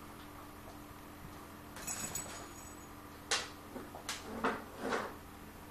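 A cat working at a tin with its paws: a scraping rattle of the tin about two seconds in, then a few sharp knocks and clicks over the next two seconds, the first the loudest.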